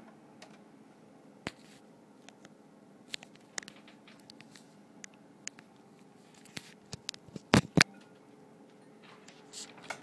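Scattered clicks and taps of handling, with two loud knocks in quick succession about three-quarters of the way through, over the low steady hum of a Bionaire humidifier running.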